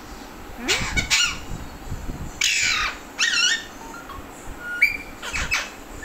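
Alexandrine parakeet giving a run of harsh, rasping squawks: about six separate calls, some short and some with sharp up-and-down pitch sweeps.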